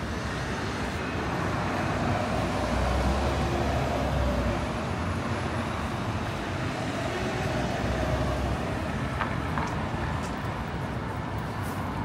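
City street traffic: passing cars with a steady rumble of engines and tyres, swelling about three seconds in and again near eight seconds.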